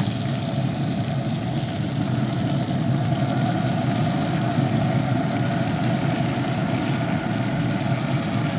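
Steady mechanical hum over a noisy rush, unchanged throughout.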